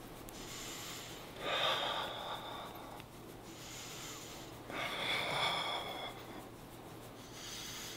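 A man breathing hard through the pain of gua sha scraping on a sensitive spot: two long, forceful exhales, about a second and a half in and again near five seconds, with quieter inhales between.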